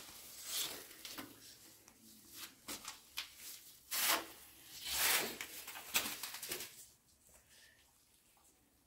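Short scrapes and rubs as a ceramic wall tile buttered with tile adhesive is handled and pressed onto the wall, with a few sharper knocks among them. The sounds die away after about seven seconds.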